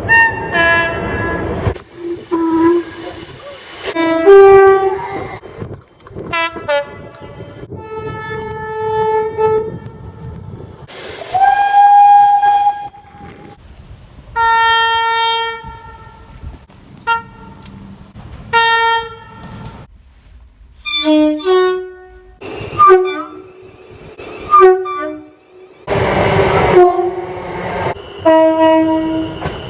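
Train horns, one after another: about a dozen separate blasts from different locomotives and units, each at its own pitch, some single-note and some stepping between two notes. A few are joined by a rushing noise.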